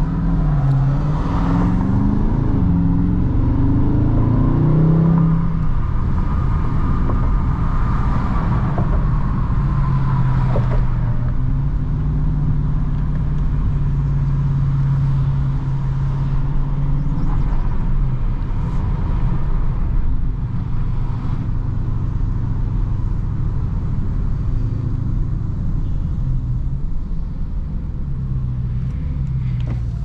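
Dodge Charger Daytona 392's 6.4-litre HEMI V8 heard from inside the cabin, revs climbing in the first few seconds, then a steady cruising drone, easing off later as the car slows.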